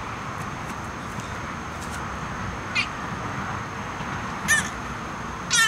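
Baby's short, high-pitched squealing laughs, three in all: a small one about three seconds in and two louder ones near the end.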